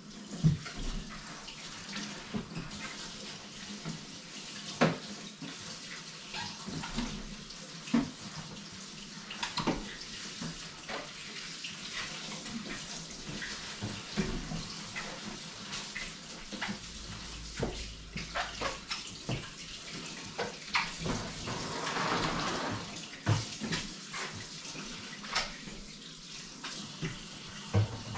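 Water running from a kitchen faucet into the sink as things are washed, with frequent sharp clinks and knocks of items being handled.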